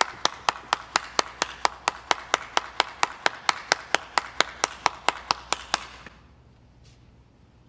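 A single person clapping hands in a steady even rhythm, about four to five claps a second, stopping about six seconds in.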